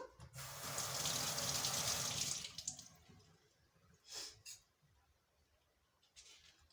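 Juice being poured into a glass, a steady splashing pour of about two and a half seconds, followed by a couple of light knocks.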